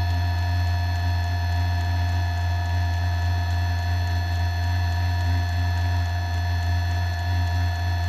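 Diesel furnace running steadily after ignition: a loud, even low hum from its blower and burner, with several steady whining tones above it.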